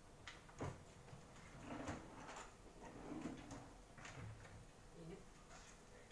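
Faint clunks and rustling of things being handled in a low kitchen cupboard, with a sharp knock about half a second in and another near two seconds.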